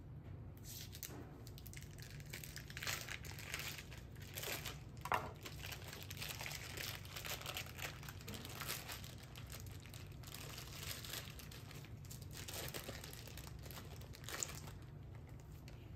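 Plastic meat packaging crinkling and rustling in irregular bursts as gloved hands handle and unwrap raw beef, over a steady low hum.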